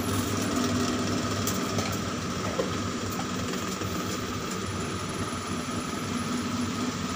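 Steady mechanical hum with a thin high whine inside a tower crane's operator cab, from the crane's drive machinery running during a lift.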